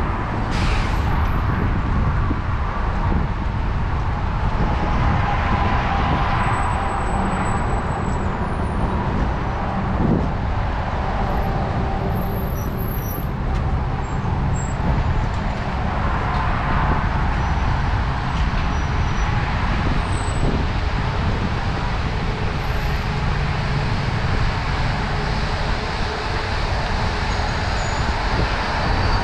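Steady road traffic of cars, trucks and buses in the lanes alongside, a continuous low engine and tyre rumble, with a short hiss about a second in.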